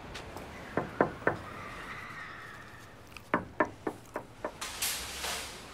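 Knocking on a glass window: three sharp knocks about a second in, then a quicker run of about six lighter knocks a couple of seconds later, and a short hiss near the end.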